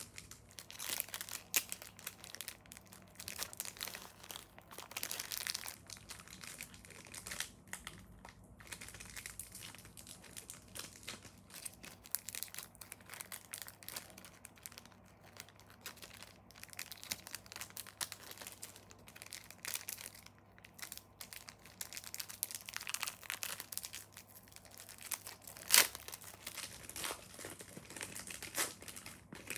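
Foil wrapper of a Pokémon Cosmic Eclipse booster pack crinkling and tearing as it is opened, in irregular bursts of rustling. One sharp snap stands out near the end.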